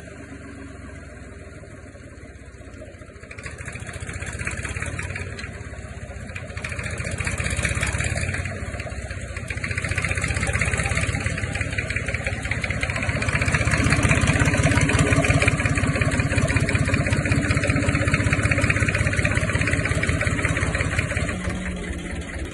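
Old Yanmar diesel engine running. It is throttled up in stages to a fast, steady run, then eases off slightly near the end.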